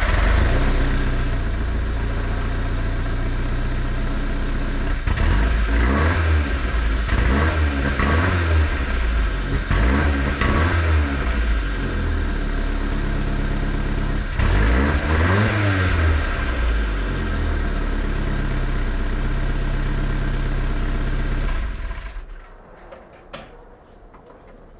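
Nissan Bluebird's CA18ET 1.8-litre turbocharged four-cylinder engine idling, revved in a series of quick blips from about five to eleven seconds in and once more around fifteen seconds, then switched off a few seconds before the end.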